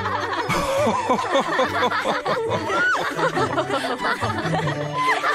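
Several voices laughing and chuckling together at once.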